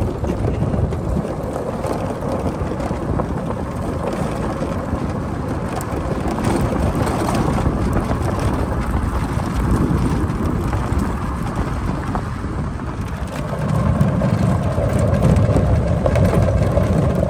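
New Holland Workmaster 75 tractor's diesel engine running steadily as the tractor drives along a gravel driveway, with wind buffeting the microphone. It grows somewhat louder about fourteen seconds in.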